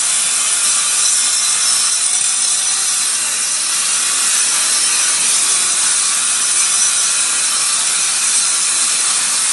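Steady, loud, harsh industrial din of shipyard machinery, a rasping hiss strongest in the upper range that runs on without a break.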